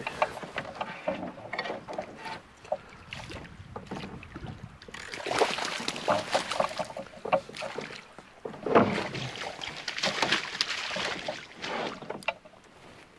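Water splashing and sloshing around a canoe, with scattered knocks and clicks from handling in the boat. There are two louder swells of splashing, one about five seconds in and one about nine seconds in.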